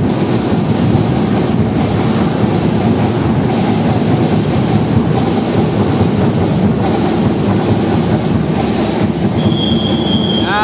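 Dense, echoing din of a crowd of spectators in an indoor futsal hall during a stoppage in play. A single high, steady tone about a second long sounds near the end.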